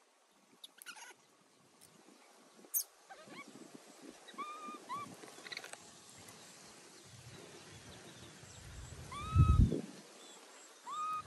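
Short, high, rising-then-falling animal calls, a couple at a time with pauses between, over faint rustling and clicks. A brief low rumble about nine and a half seconds in is the loudest sound.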